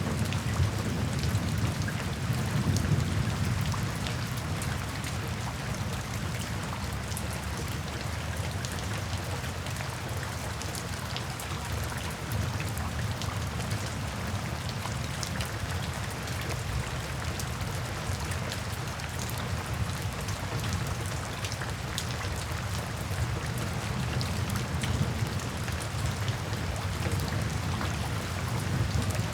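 Steady rain falling, with many individual drops pattering on a surface. A low rumble of thunder dies away over the first few seconds.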